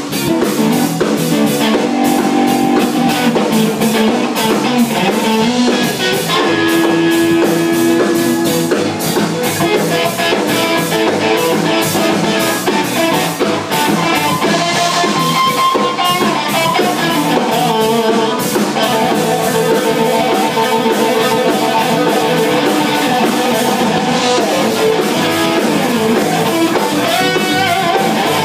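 Live band jamming: electric guitar playing over a drum kit, with steady beats and sustained melodic notes.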